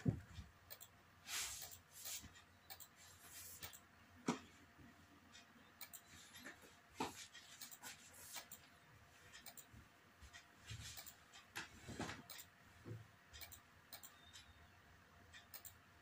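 Irregular soft clicks and a few brief rustles from a bullet chess game played quickly online with a computer mouse, about one click every half second to a second.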